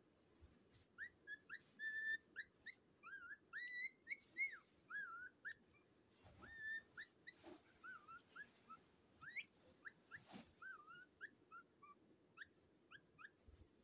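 Cockatiels chirping: a fast string of short, faint calls that swoop up and down in pitch, several a second.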